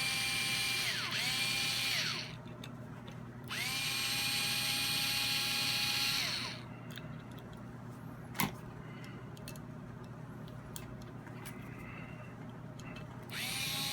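A small cordless power screwdriver backing out the cap screws of a Weaver rail. Its motor whines up, runs steady and winds down in several runs: two short ones, a longer one of about three seconds, and another starting near the end. A single sharp click falls in the quiet between.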